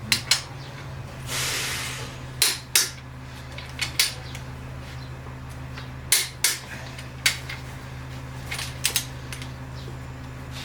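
Scattered sharp metal clinks and clacks of hand tools and engine parts being handled, about ten separate knocks at uneven intervals, with a short hiss about a second and a half in. A steady low hum runs underneath.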